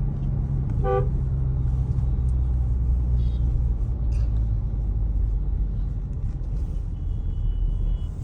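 Steady low rumble of a Mahindra Scorpio N diesel being driven, heard inside the cabin, with a brief pitched sound about a second in.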